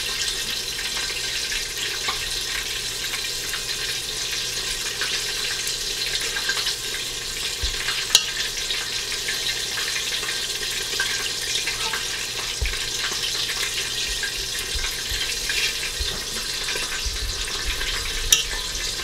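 Hot oil sizzling and crackling steadily as buttermilk-battered chicken fries, with a couple of sharp clicks, one about eight seconds in and one near the end.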